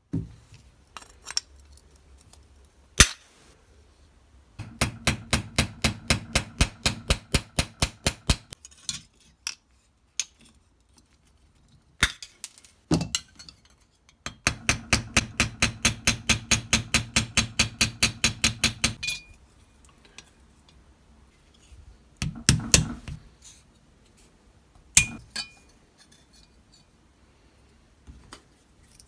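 Small hammer tapping on a folding knife's metal frame laid on a small bench anvil: two long runs of quick, even taps, about six a second, lasting several seconds each, with a few single knocks between them.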